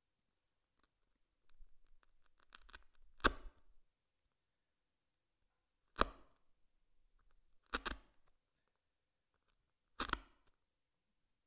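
A chisel chopping down into a small block of wood, with four sharp strikes about two seconds apart, preceded by light ticks and taps as the edge is set.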